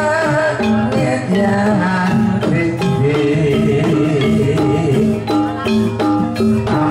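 Javanese gamelan-style dance accompaniment: metallophones playing a stepping melody over drums and percussion, with a steady beat.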